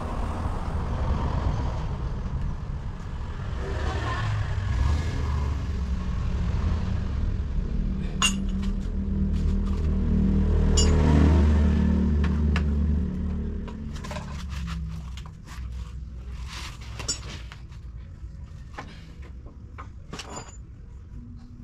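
A motor vehicle's engine rumbles, building up to its loudest about eleven seconds in and then fading away, like a vehicle going past. Sharp metallic clinks and clicks are scattered through, mostly in the second half.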